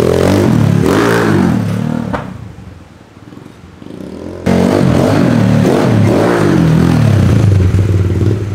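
Kawasaki KLX110L pit bike's small single-cylinder four-stroke engine, fitted with a Yoshimura exhaust, revving up and down over and over. It falls quieter a couple of seconds in, then comes back loud suddenly about halfway through.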